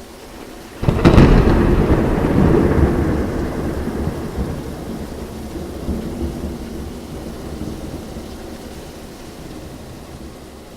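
A sudden thunderclap about a second in, followed by a low rolling rumble that slowly fades over several seconds, over a steady hiss of rain.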